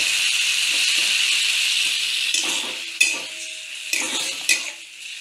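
Grated pineapple sizzling in hot ghee in a metal kadai while a metal spatula scrapes and clinks against the pan as it is stirred. The sizzle is steady at first and dies down after about two and a half seconds. Separate stirring strokes follow, with a sharp clink about three seconds in.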